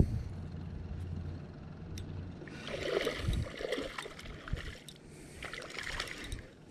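A hooked black crappie splashing and thrashing at the water's surface as it is reeled toward the bank, in two bouts of splashing about two and a half seconds apart.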